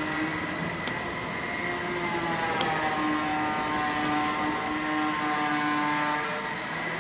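Southwest Trak DPM CNC bed mill running, a steady electric-machine whine made of several pitched tones. Some of the tones dip slightly in pitch and come back up in the middle. A few light ticks sound over it.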